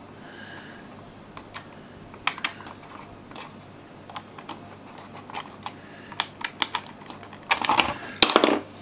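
Irregular sharp plastic clicks and taps from a Logitech G600 mouse being handled and its buttons pressed, with a louder flurry of clicks near the end.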